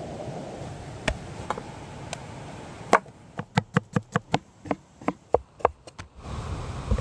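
Large kitchen knife slicing an onion on a wooden board: a quick run of about a dozen sharp chops, roughly four a second, each blade strike knocking on the wood.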